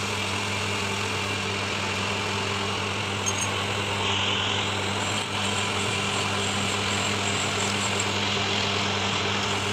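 Metal lathe running steadily, spinning a 200cc CNG auto-rickshaw crankshaft assembly, with a steady low hum from its motor and drive.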